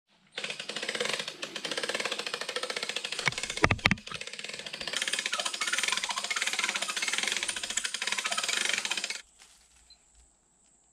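Small gasoline engine of a handheld power tool running steadily at high revs. It has a short dip and a couple of sharp knocks about four seconds in, then cuts off abruptly about nine seconds in.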